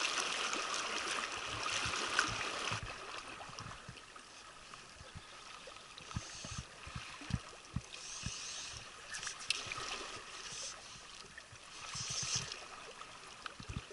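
Mountain stream water running steadily, a rushing hiss that drops in level about three seconds in, with small scattered knocks.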